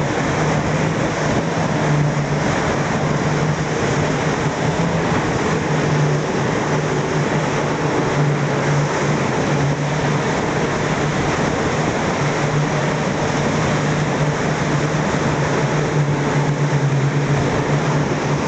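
Motorboat engine running steadily under way, a constant low drone over an even rush of water and wind.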